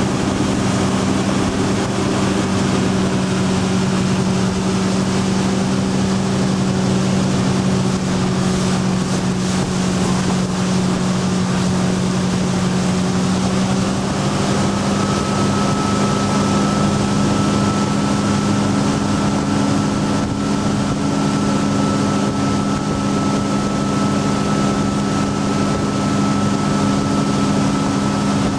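Tow boat's engine running steadily at skiing speed, heard from on board, with a steady rush of water and wind over it. A thin higher whine comes in about halfway through.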